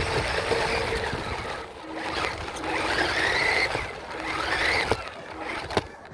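Radio-controlled truck's motor whirring in three bursts, its pitch rising and falling with the throttle, followed by a sharp click near the end.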